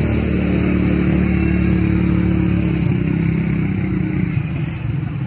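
An engine running steadily with a low hum, which changes and eases a little about three seconds in.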